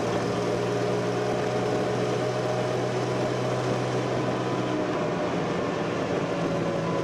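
Military vehicle engine running steadily with a constant low drone over road noise; the engine tone shifts slightly about five seconds in.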